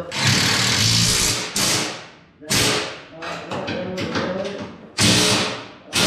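Impact wrench running a nut down on a seat-mount bolt in several short bursts: a long one of about a second and a half at the start, shorter ones after it, and another near the end.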